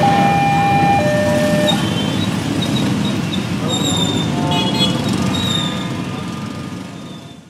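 Railway level-crossing warning alarm alternating between a higher and a lower tone, about one note a second, stopping about two seconds in. Under it runs the steady rumble of many idling motorcycle engines waiting at the crossing, with a few short horn toots in the middle.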